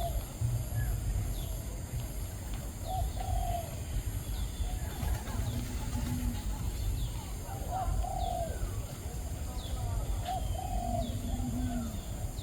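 Birds calling outdoors: short, low, arched calls repeated every two to three seconds, with scattered brief high chirps, over a steady low rumble.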